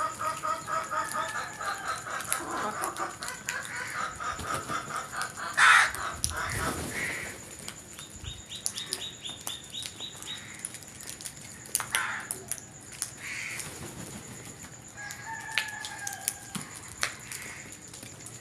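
Birds calling. A fast series of repeated calls runs for about the first five seconds, with one loud call about six seconds in. Scattered calls follow, then a quick rattling run around nine seconds and a whistled call near sixteen seconds.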